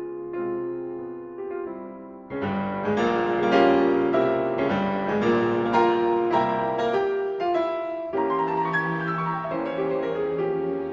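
Background piano music: a slow, gentle passage that swells into fuller chords a couple of seconds in.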